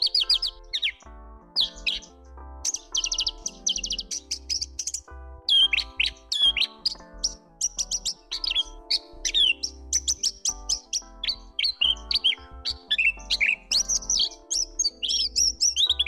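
Horsfield's bush lark (Javan bush lark, Mirafra javanica) singing a long, varied song of rapid high trills, chirps and down-slurred notes, over soft background music.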